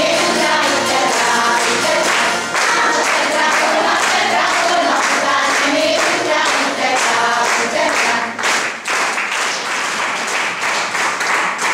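Women's choir singing a Hungarian folk song to strummed citera (Hungarian zither) accompaniment. About eight seconds in, the song gives way to audience applause.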